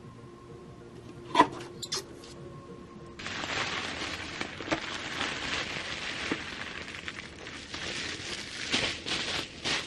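Rustling and crackling handling noise, with scattered sharp clicks, starting about three seconds in. Before it come a faint steady tone and two clicks.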